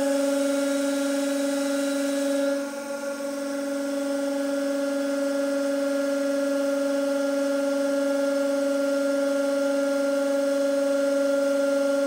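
150-ton hydraulic press running as its ram lowers slowly: a steady pitched hum from the pump. A hiss over the hum drops away about two and a half seconds in.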